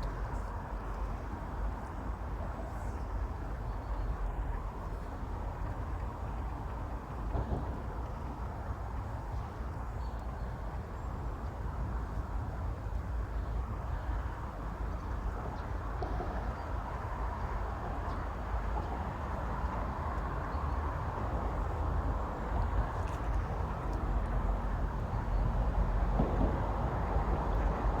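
Steady outdoor background rumble with a hiss over it, growing a little louder near the end, with a few faint knocks.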